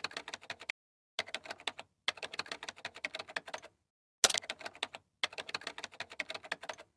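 Rapid computer-keyboard typing: several runs of quick key clicks broken by short pauses, timed to on-screen text being typed out.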